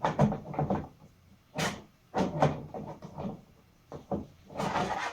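Plastic cover plates being handled and pushed against an exercise bike's frame while being fitted: irregular knocks, clacks and scrapes, the sharpest about a second and a half in.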